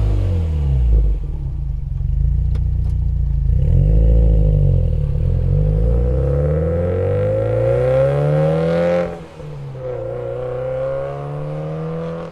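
Subaru WRX STI's turbocharged flat-four exhaust through an HKS aftermarket muffler, the car under way: the revs fall at first, climb for several seconds, drop sharply about nine seconds in at a gear change, then climb again.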